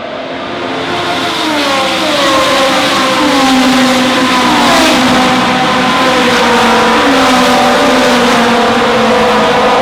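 Racing car engine growing louder as it approaches, its note dropping in pitch several times in quick succession, then holding a steady note.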